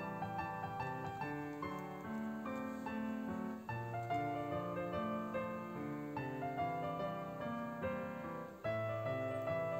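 Background piano music: a gentle tune of held chords and melody notes changing about once a second.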